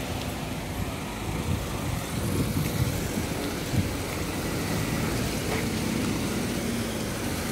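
Car engine and road noise: a steady low rumble with a few small knocks.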